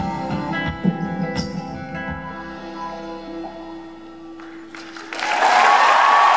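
Acoustic guitar and percussion finishing a song live, the last held notes and a few drum strikes fading out; about five seconds in, the audience breaks into loud cheering and screaming.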